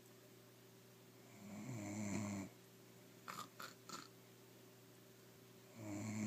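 A woman snoring, with rasping snores about every four seconds: one a little over a second in and the next starting near the end. Three quick, short clicks come between them.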